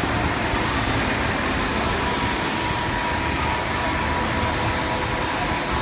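Steady machinery noise from a running door shrink-wrapping line and its belt conveyor: an even rushing hum with a faint steady whine over it.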